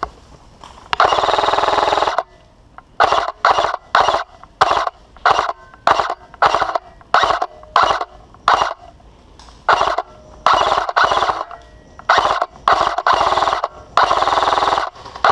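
Airsoft rifle firing close to the microphone in bursts with a buzzing rattle: one long burst about a second in, then about a dozen short quick bursts, then longer bursts again near the end.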